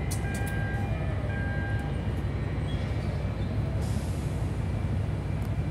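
Steady low rumble of container-port machinery and engines, with faint high steady tones over it in the first couple of seconds.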